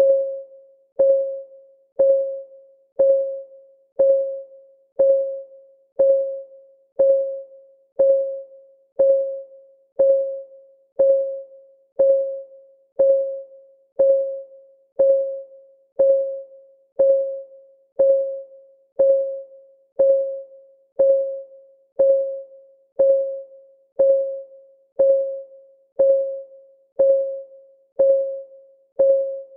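Countdown timer's clock-ticking sound: a short, pitched electronic tick once a second, each dying away quickly, in a steady even rhythm.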